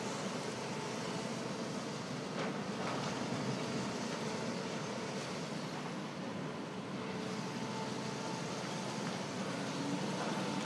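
Diesel engines of tracked hydraulic excavators running steadily on a demolition site, with a few faint knocks from the digging.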